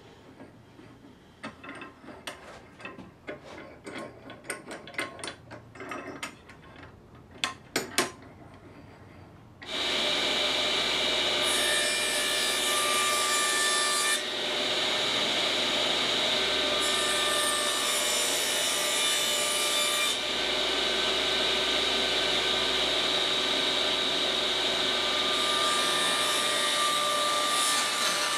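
Scattered clicks and knocks of the glued-up panel being handled in its bar clamps, two of them loud. About ten seconds in, a table saw starts suddenly and runs with a steady whine. Three times the blade cuts through the pecan and mahogany panels, adding a hiss, as 45-degree bevels are cut.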